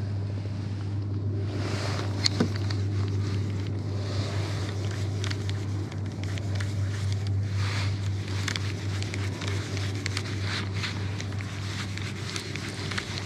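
A steady low drone with wind on the microphone, and scattered light clicks and ticks from a baitcasting rod and reel being handled.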